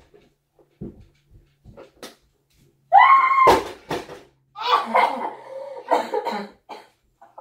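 A child's high-pitched squeal about three seconds in, cut by a couple of sharp thumps, followed by a stretch of laughing and babbling. A few soft knocks come before it.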